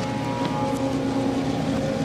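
A steady, engine-like drone: a noisy hum with several held tones running through it, part of a layered, mixed soundtrack.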